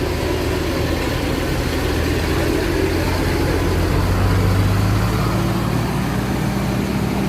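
Heavy diesel engine of an intercity bus running steadily near idle, a low drone whose pitch steps up about five seconds in.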